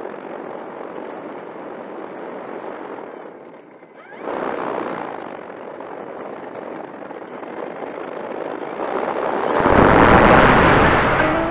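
Electric motor and propeller of an E-flite Air Tractor RC plane heard from an onboard camera during taxiing, with wind rushing over the microphone. The power comes up again about four seconds in, and near the end it goes to full throttle for the takeoff run, its loudest, with heavy wind buffeting.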